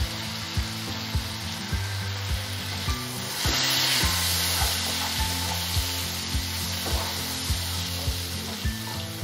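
Hot mustard oil sizzling around chillies in a frying pan as they are stirred with a wooden spatula; the sizzle swells briefly about three and a half seconds in.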